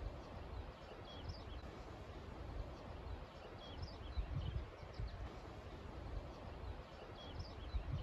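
Wind gusting over a meadow and buffeting the microphone in low rumbles that swell about halfway through and again near the end, with small birds giving many short, high chirps.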